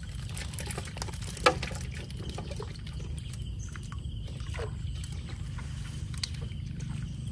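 Water trickling and splashing, over a low steady rumble, with one sharp knock about one and a half seconds in.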